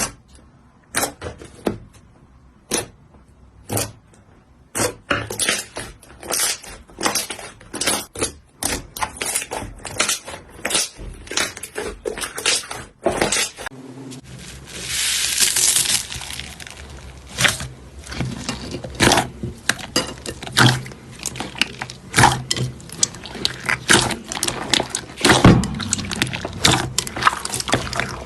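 Slime being squeezed and poked by hand: an irregular run of short crackling pops and squishes, with a stretch of hissing about fifteen seconds in.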